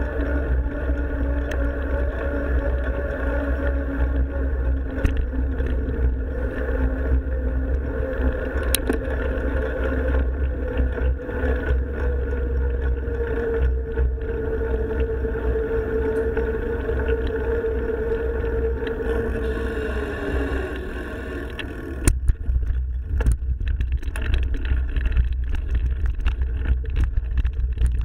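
A mountain bike riding fast, with a steady hum over a low rumble of wind and vibration. About 20 seconds in, the hum drops in pitch and fades. From about 22 seconds there are rattles and knocks instead.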